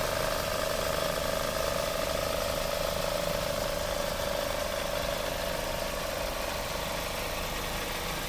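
Old Mercedes-Benz car engine idling steadily, with a constant tone running through its sound.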